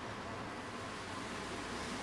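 Sleeping man's open-mouthed breathing: a breathy rush of air that slowly grows toward the end.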